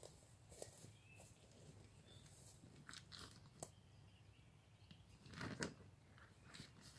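Faint, scattered crunches and rustles with a few sharp clicks, the loudest a longer crunchy rustle about five and a half seconds in.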